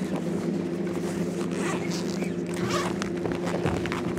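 Steady low hum of the boat's motor, with a few faint clicks and rustles of tackle being handled.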